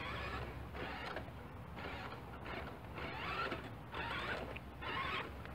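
RC Western Star 49X dump truck's electric drive motor and gears whining in short pulses, about one a second, as it slowly pulls a loaded trailer forward.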